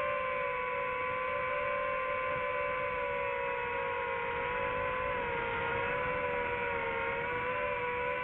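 DJI FPV quadcopter drone's motors and propellers whining steadily in flight: several held pitches that drift slightly up and down as the motors change speed.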